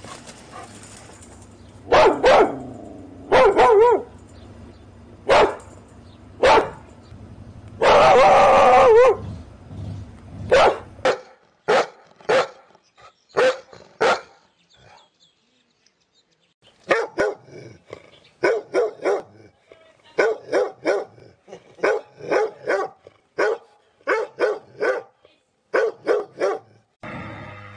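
Dog barking aggressively. First come a few loud, drawn-out barks over a low hum, one lasting about a second. After that, with the hum gone, come runs of short, sharp barks in quick doubles and triples.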